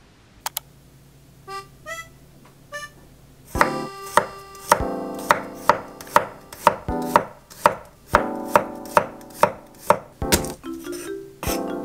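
Kitchen knife slicing garlic cloves on an end-grain wooden cutting board: a steady run of sharp knife-on-wood taps, about two to three a second, starting a few seconds in.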